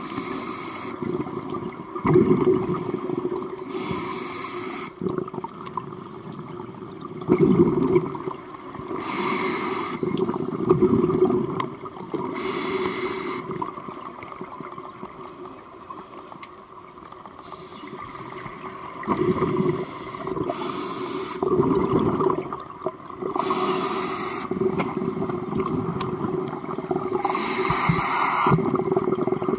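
Scuba diver breathing through a regulator underwater: a hissing inhale every few seconds, alternating with gurgling bursts of exhaled bubbles.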